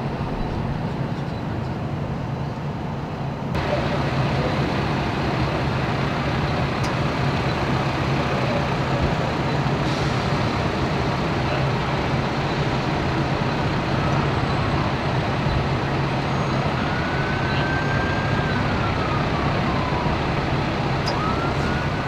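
A steady low engine hum over constant street and traffic noise, which gets louder about three and a half seconds in. Near the end come a few short siren-like tones, rising and then falling.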